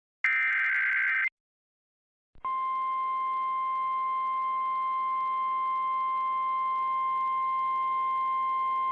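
An Emergency Alert System SAME header data burst, a harsh warbling digital screech lasting about a second. After a short gap, the steady 1050 Hz Weather Radio warning alarm tone starts about two and a half seconds in and holds unbroken, announcing a new warning.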